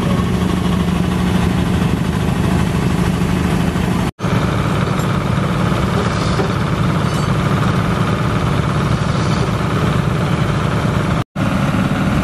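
An engine running steadily at an even speed, with a continuous low hum. The sound cuts out briefly twice, about four seconds in and again near the end.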